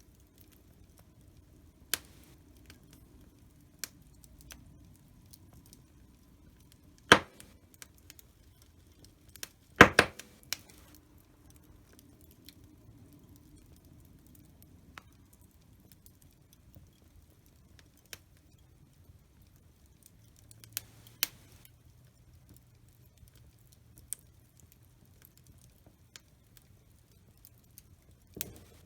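Wood fire in a fireplace crackling, with scattered sharp pops over a faint low hiss. The two loudest pops come about seven and ten seconds in.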